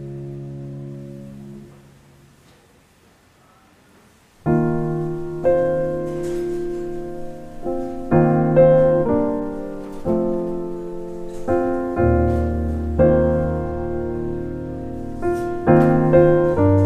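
Slow, gentle piano music: a held chord fades away into a brief quiet gap, then soft chords begin about four and a half seconds in and go on one after another.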